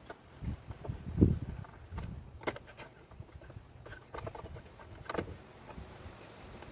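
Irregular clicks and light plastic clatter from handling a Jeep Cherokee XJ tail light assembly and hand tools while parts are swapped over, with a low thump about a second in.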